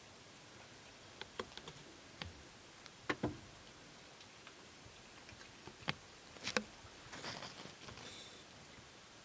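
Wild boar sow and striped piglets feeding and drinking at a muddy puddle: faint, scattered clicks and ticks, a few louder around three and six and a half seconds in, then a short rustling patch near the end.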